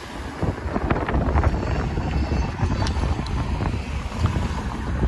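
Cars driving past close by on a street, with wind buffeting the microphone in a heavy, uneven rumble.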